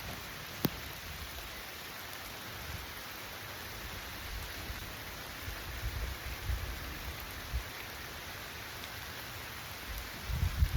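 Heavy rain falling, a steady even hiss, with a single sharp tick about a second in and a few low bumps near the middle.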